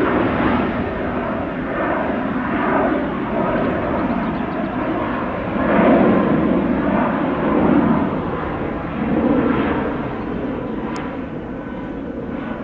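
Jet airliner engines, a loud steady rushing noise that swells and eases several times.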